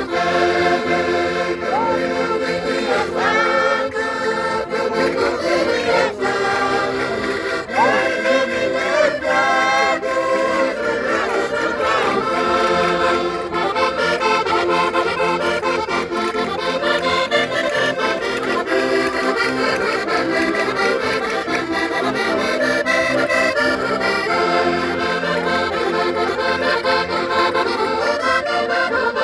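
Concertinas (Minho diatonic button accordions) playing a lively traditional Portuguese folk tune in steady chords, with a voice singing over them in the first part.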